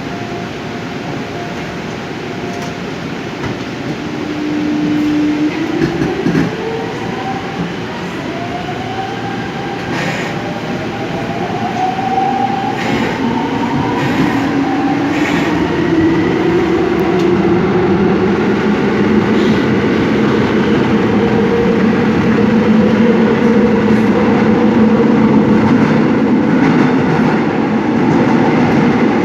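Seoul Subway Line 5 train accelerating. The electric traction motors' whine climbs in pitch in several stages from about four seconds in, over steady running noise that grows louder, with a few sharp clacks from the wheels in the middle.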